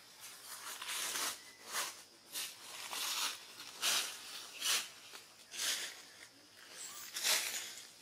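Dry rustling and scraping noises in short uneven bursts, about one a second.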